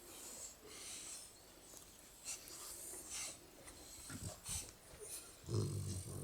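Sleeping shar-pei puppies breathing noisily, with a string of hissy breaths, then one low, louder snore near the end.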